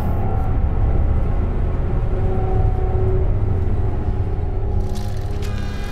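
Steady low rumble of a moving bus, heard from inside. Several steady higher tones join near the end.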